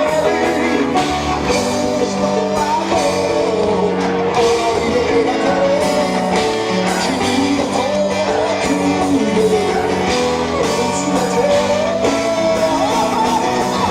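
Live rock band playing loud, steady music with guitar, drums and singing.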